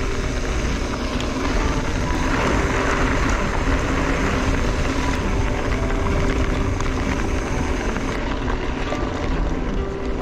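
Wind rushing over the microphone and mountain-bike tyres rolling on a loose gravel track: a steady rumbling hiss that grows brighter for a few seconds about two seconds in.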